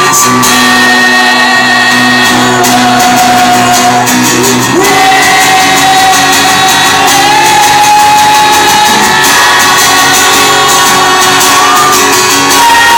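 Live solo acoustic performance: a man sings long held notes at full voice over a strummed acoustic guitar, loud and close.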